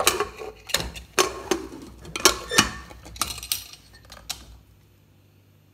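Aluminium Prestige pressure cooker lid being fitted and twisted shut on the pot: about a dozen sharp metal clicks and clanks of lid against rim over some four seconds, then stopping.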